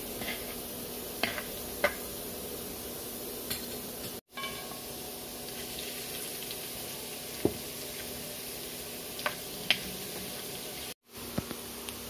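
Oil sizzling in a kadai as whole spices fry, with a steel spatula tapping and scraping the pan several times in short sharp clinks, over a faint steady hum. The sound drops out twice for a moment.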